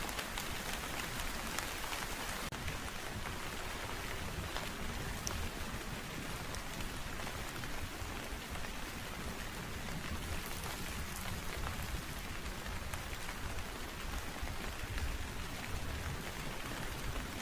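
Steady rain falling, with many individual drops ticking on surfaces close by.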